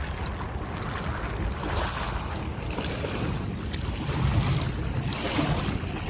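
Wind buffeting the microphone outdoors by the water: a steady low rumble with a hiss over it.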